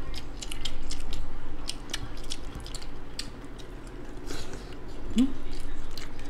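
Close-up mouth sounds of people eating chicken and rice by hand: wet, irregular chewing and lip-smacking clicks, with a brief hum about five seconds in.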